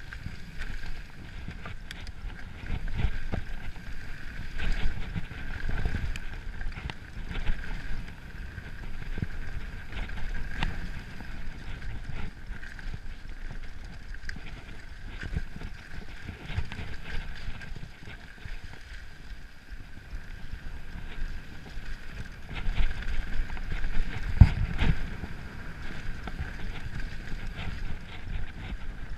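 Mountain bike descending a dirt forest trail at speed: tyres rolling over dirt and roots, the bike rattling and clattering, and wind rushing over the microphone, with heavy thumps over bumps, the strongest about 24 seconds in.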